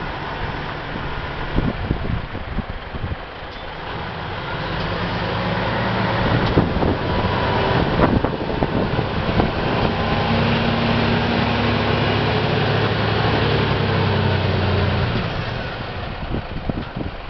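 Hino 700 concrete mixer truck's diesel engine running. It grows louder about four seconds in, holds a steady, stronger note, and eases back near the end. Scattered clicks and knocks sound throughout.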